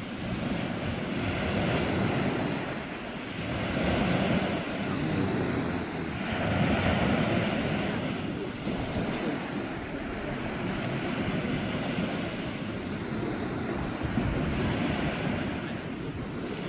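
Small waves breaking and washing up on a sandy beach, the wash swelling and falling back every couple of seconds, with wind buffeting the microphone.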